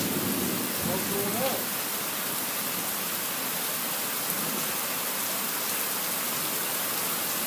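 Steady downpour of rain, an even hiss that holds without a break.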